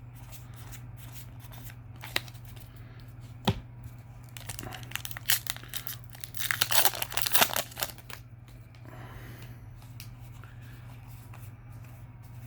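A foil trading-card booster pack being torn open and its wrapper crinkled. A couple of sharp clicks come first, and the tearing and crinkling is loudest from about six to eight seconds in.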